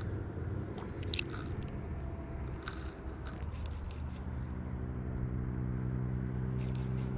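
Ultralight spinning reel being cranked to retrieve a jig, with crunchy handling noise and a few light clicks. About four seconds in, a steady low hum joins and holds.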